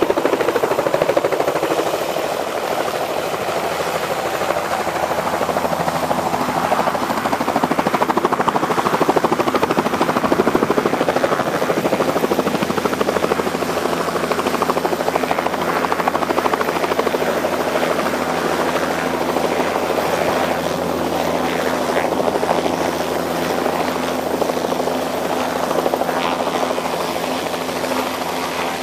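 Medical helicopter's engine and rotor running steadily, slowly getting a little quieter.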